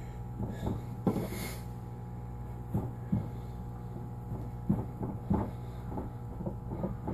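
Irregular soft thumps and taps of gloved hands pressing and folding dough on a tabletop, with a brief rustle of plastic gloves about a second in, over a steady low hum.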